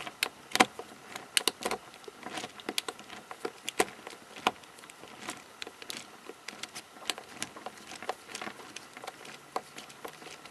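Small plastic pieces of a MoYu 13x13x13 puzzle cube clicking and clattering as the cube is taken apart by hand. The clicks are irregular, several a second, with the sharpest about half a second in.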